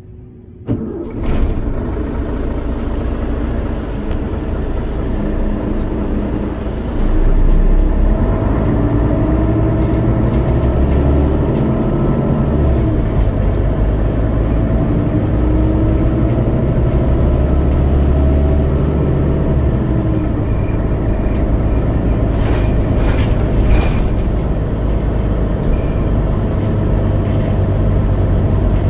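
Cabin sound inside a Mercedes-Benz Citaro O530 G articulated bus under way, its engine and running gear going steadily. It gets louder about seven seconds in as the bus pulls harder, and the engine pitch rises and falls several times. A few rattles come near the end.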